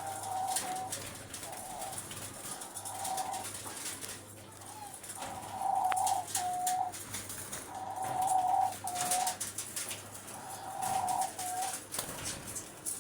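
Pied doves cooing: about six repeated coo phrases, several ending in a short, lower note, over faint clicks and rustling.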